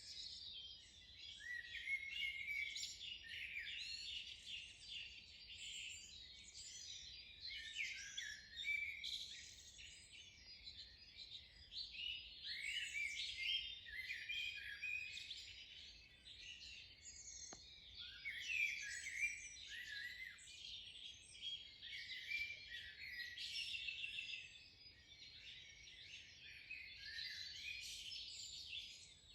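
Dawn chorus: many small birds singing and calling at once, a dense, continuous mix of overlapping high chirps, trills and whistles.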